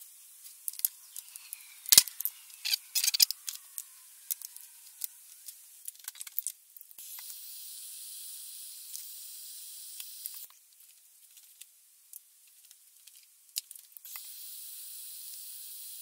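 Handheld butane micro torch burning with a steady hiss, twice for a few seconds each, heating a copper lug to solder a wire onto it. Before it, light clicks and taps of pliers and small copper pieces being handled.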